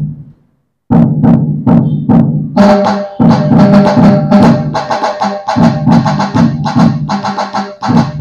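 Roland HandSonic electronic hand-percussion pad playing a Puneri dhol-tasha rhythm. A looped dhol pattern of low drum strokes starts about a second in, after a brief silence. Rapid, sharp tasha strokes, played by hand on the pad, join from about two and a half seconds in.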